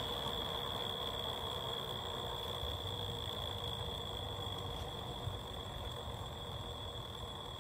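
Ball-bearing turbocharger on an idling turbo Honda Integra engine: the compressor gives a steady high-pitched whistle over the low engine hum, slowly getting quieter.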